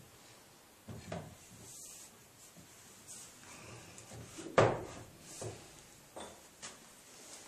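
Hammer striking a drift to drive oak pegs into draw-bored table joints: a handful of separate, irregular knocks, the loudest about halfway through.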